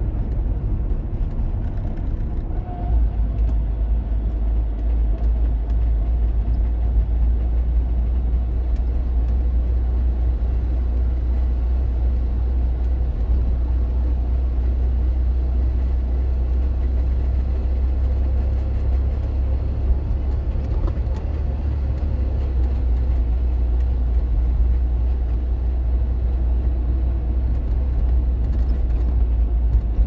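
Trabant 601 on the move, heard from inside the cabin: the two-cylinder two-stroke engine's steady low drone with road noise. Somewhere in it is a rattle the owner cannot place and wonders is a wheel bearing.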